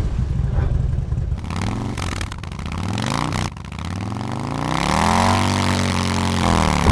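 Motorcycle engine revving, its pitch climbing and dropping several times. It breaks off abruptly about halfway through, then makes one long rise and fall near the end.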